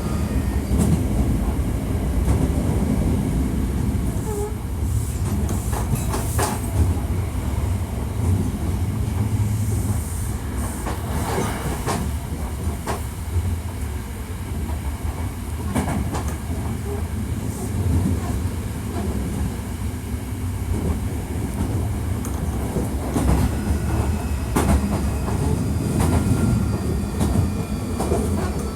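Hankyu 1300 series electric train running between stations, heard from inside the car: a steady low rumble of wheels and running gear, with scattered clicks over rail joints and a faint motor whine.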